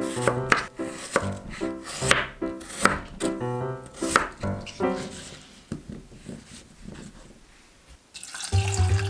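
Light background music with irregular sharp knife strokes on a cutting board, typical of potatoes being cut into bite-sized pieces. The music fades about six seconds in, and near the end it returns over running water.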